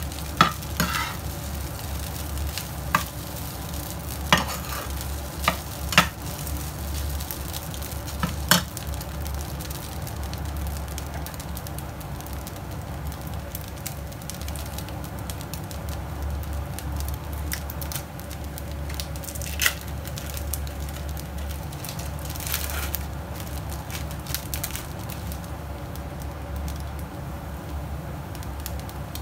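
Fried rice sizzling steadily in a nonstick frying pan. A metal spatula scrapes and knocks against the pan several times in the first nine seconds, and a couple more times later on.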